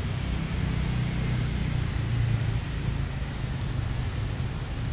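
Wind buffeting an action camera's microphone as a steady low rumble, over an even hiss of rain on wet pavement.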